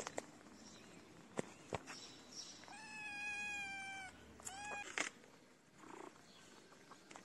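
A cat meowing: one long, even meow about three seconds in that lasts over a second, then a short meow rising in pitch about a second later.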